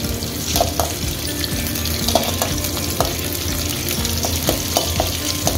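Dried red chillies, green chillies, curry leaves and whole spices sizzling in hot oil in a kadai while a spatula stirs and scrapes through them, the tempering stage of the dish. Short, irregular scrapes and crackles sound over the steady sizzle.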